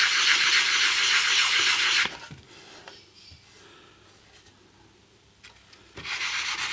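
Wet-and-dry sandpaper rubbing quickly back and forth on an Arvin 450-TL radio's Bakelite case to sand out a scratch, a steady scratching rasp. It stops about two seconds in, leaving only a few light clicks, and starts again near the end.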